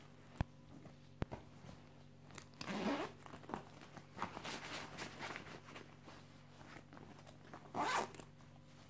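Zipper on the front pocket of a canvas shoulder bag being pulled, with a loud quick zip about three seconds in and another near the end, and quieter rasping and fabric handling between them.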